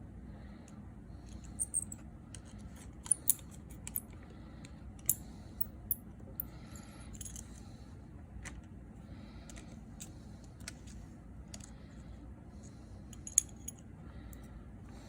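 Small metal tools and tiny parts clicking and tapping against an opened iPhone 6s Plus during reassembly: a handful of sharp, separate clicks with quieter handling sounds between.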